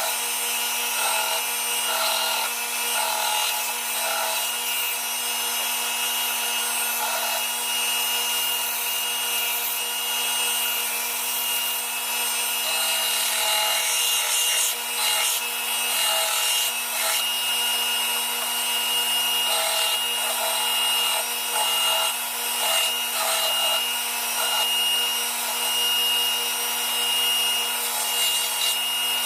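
A power sander runs continuously with its abrasive rubbing against a workpiece: a steady motor hum and a high whine under a rough, grinding hiss.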